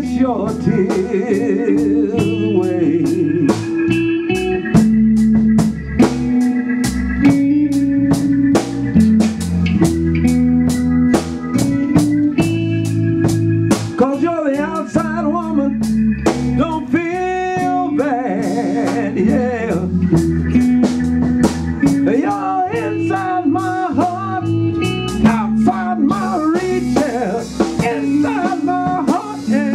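Live blues band playing an instrumental break: electric guitar lead with bent, wavering notes over bass and a steady drum-kit beat.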